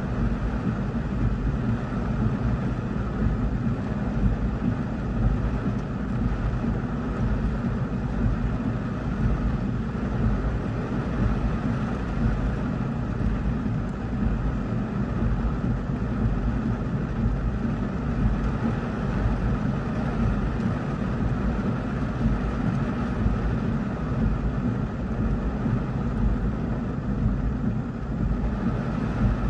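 Heavy rain beating on a car's roof and windshield, heard from inside the car: a steady, even din with a deep rumble underneath.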